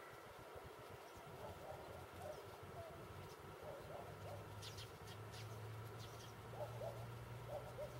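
Faint, distant birds calling: short repeated cooing-like notes with a few high chirps about halfway through. A low steady hum comes in about halfway and continues.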